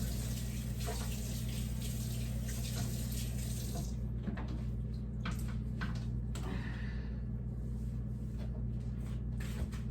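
Kitchen faucet running water into a sink while a refrigerator shelf is washed. About four seconds in, the water is shut off, and scattered light knocks and clicks follow as the washed parts are handled. A steady low hum lies under it all.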